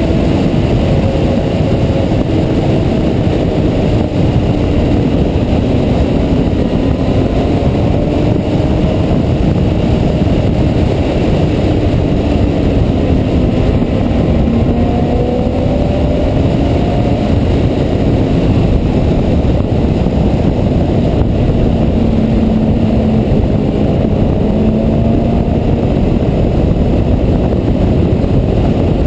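Loud wind rush over the onboard camera while riding a Yamaha R6 sport motorcycle. Under the wind, its 600 cc inline-four engine runs at a cruise, its pitch slowly rising and falling with the throttle.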